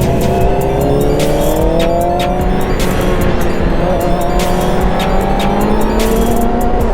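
Yamaha R6's inline-four engine pulling hard, its pitch climbing steadily, dropping once about three seconds in as it shifts up a gear, then climbing again, over rushing wind noise.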